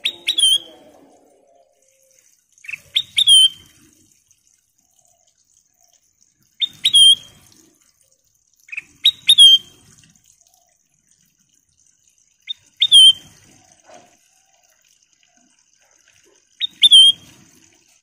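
Ruby-throated bulbul (kutilang emas) singing a short phrase of two or three quick notes, repeated six times about every three seconds.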